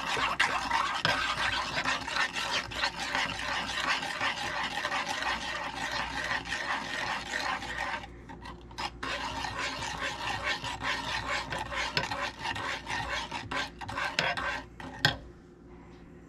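A metal spoon beating eggs into butter and sugar in a metal saucepan: fast scraping and clinking against the pan, with a short break a little past halfway. It stops with a single knock near the end.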